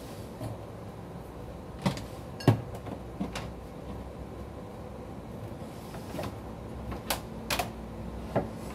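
Kitchen handling noises: a scattering of short knocks and clicks, the loudest about two and a half seconds in, over a steady faint hum.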